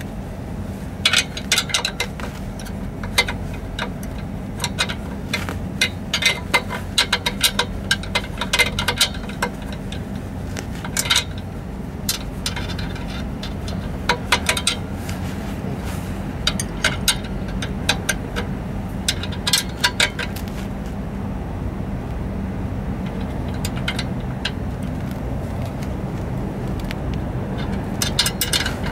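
Hand tools on exhaust clamp bolts: a ratchet and a box-end wrench clicking and clinking against metal in irregular clusters as the bolts are worked loose, with the clinking thinning out in the second half. A steady low hum runs underneath.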